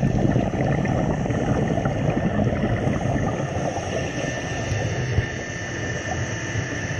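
Underwater noise picked up by a camera in the water: a steady, dense rumble and crackle with faint steady high whines over it.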